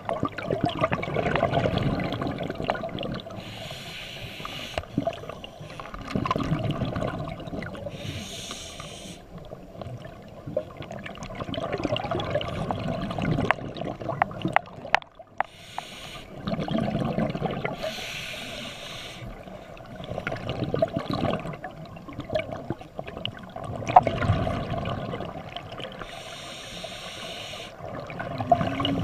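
Scuba diver breathing through a regulator underwater: a short hiss of inhaled air every few seconds, alternating with longer burbling rushes of exhaled bubbles.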